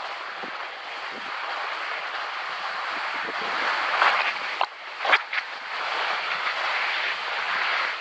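Skis sliding and carving down a packed, tracked-up snow slope: a steady hiss of the ski bases and edges on snow that grows louder about halfway through, with a couple of sharp scrapes near the middle.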